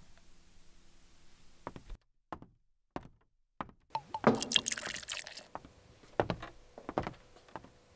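A drink being poured into a glass, with a few knocks and clinks before and after the pour.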